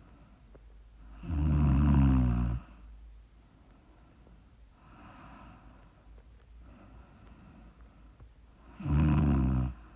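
A woman snoring in her sleep: two loud snores about seven seconds apart, the first lasting over a second, with quieter breathing between them.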